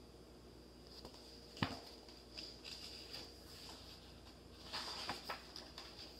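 Quiet handling of a hardback picture book: a sharp knock about one and a half seconds in, then small taps and a short stretch of rustling near the end.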